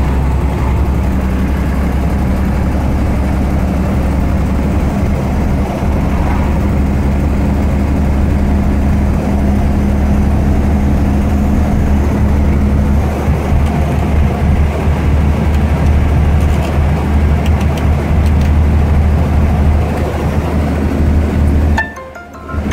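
Truck engine running steadily under way, heard from inside the cab with road noise; its drone shifts in pitch about halfway through. Near the end the sound is suddenly muffled for a moment.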